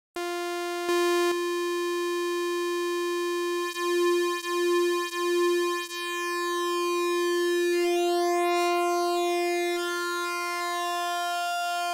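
Arturia OP-Xa V software synthesizer, an emulation of the Oberheim OB-Xa, holding one steady synth note while its settings are changed. About four seconds in the note pulses in volume three times, then its upper tones take on a sweeping, phasing shimmer.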